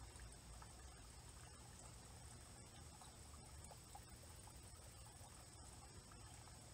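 Near silence: a faint, steady high-pitched chirring of insects over a low steady hum, with a few faint soft ticks.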